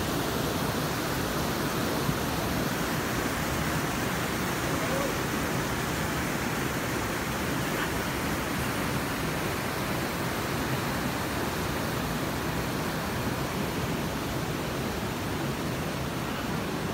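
Steady rushing of a stream cascading over rocks into a pool.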